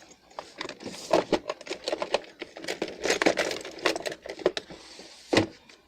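Small parts of a computer mouse and its cable being handled: a run of light clicks, taps and rustles, with one sharper click near the end.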